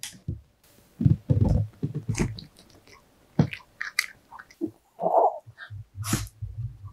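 Pomeranian biting and chewing a homemade dog waffle topped with strawberry and banana, in irregular bites, with a short burp about five seconds in.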